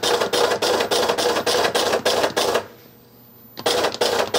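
Keys typed on an AN/UGC-74B teletype terminal, each character printed at once by its dot-matrix print head: a quick run of short clattering strokes at about five a second, stopping for about a second near the three-second mark, then starting again. The printer is echoing the keyboard without fault, its carriage motor working again.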